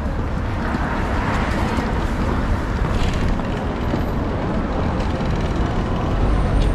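City street traffic: vehicles passing with a steady low rumble.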